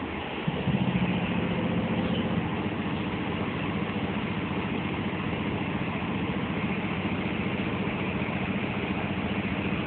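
Diesel-electric locomotive engine idling, heard up close as a steady mechanical drone. A louder low hum sits on top for roughly the first two seconds.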